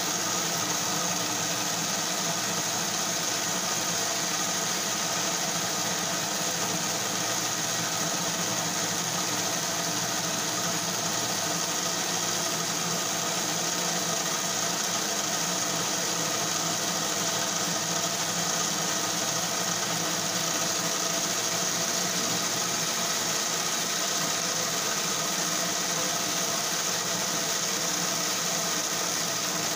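Lionel 1065 toy train locomotive's electric motor and gears running steadily at constant speed, an even mechanical whir. The armature and brush plates have just been cleaned with spray cleaner, and the motor is being left to run so it picks up speed.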